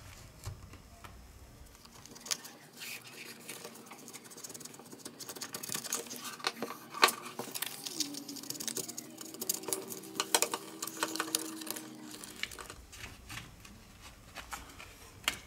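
Small irregular clicks and taps of tools and plastic parts as a Gigaset Me Pro smartphone is taken apart, thickest in the middle, with a faint steady hum for a few seconds in the second half.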